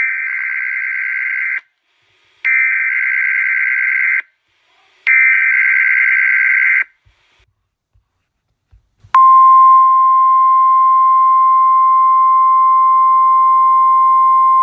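NOAA Weather Radio emergency alert signal, sounded as a required weekly test: three buzzing bursts of digital alert header data, each about a second and a half long. Then, about nine seconds in, the steady 1050 Hz warning alarm tone starts and holds unchanged.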